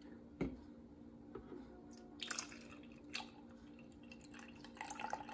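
Milk pouring from a plastic jug into a stainless steel pitcher of espresso, faint splashing and trickling, with a soft knock about half a second in.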